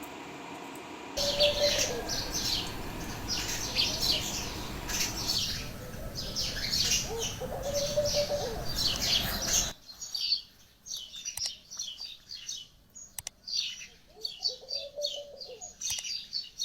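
Small birds chirping over and over in quick short calls, with a few lower sliding calls among them. A loud steady noise runs under them from about a second in and cuts off abruptly about two-thirds of the way through, leaving the birdsong alone.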